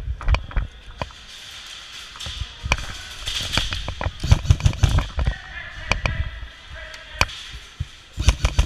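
Airsoft guns firing: irregular single pops, with quick strings of shots about halfway through and again near the end.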